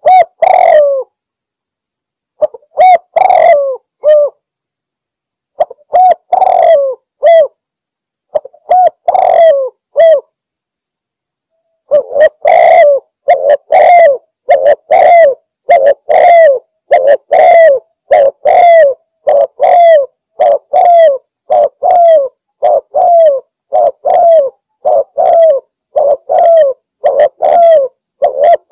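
Spotted dove (tekukur) cooing loudly, its territorial call to a rival: a few separate coo phrases with pauses during the first ten seconds or so, then an unbroken run of coos at about three every two seconds.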